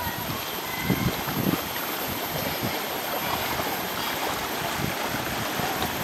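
Water rushing down a narrow, fast-flowing channel as a steady noise, with a few low thumps about a second in.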